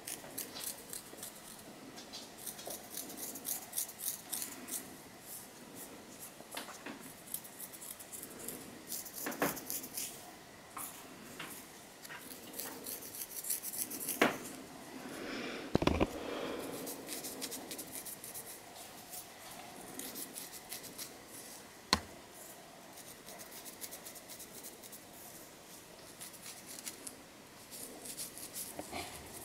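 Long fingernails scratching through hair against the scalp, dislodging dandruff flakes: runs of quick, crisp scratching strokes, with a few sharper knocks, the loudest about sixteen seconds in.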